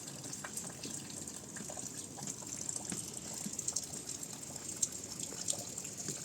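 Heavy rain falling steadily, with scattered sharp drop hits.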